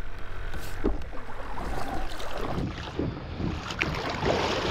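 Kayak paddle strokes splashing and water sloshing along the hull of a pedal kayak under way, with wind buffeting the microphone.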